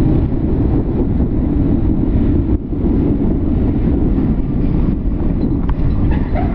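Wind rushing over a helmet-mounted microphone, with a motorcycle running underneath while riding in traffic. The sound breaks for an instant about two and a half seconds in.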